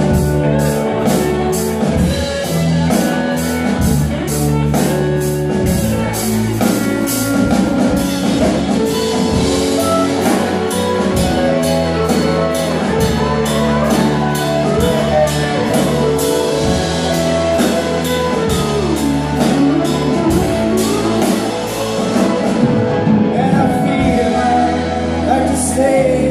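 A live rock band playing a song: electric guitars, bass, keyboard and a drum kit keeping a steady beat on the cymbals, with voices singing over it.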